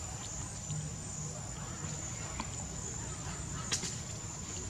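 Steady high-pitched insect drone over a low rumbling background noise, with a single sharp click about three and a half seconds in.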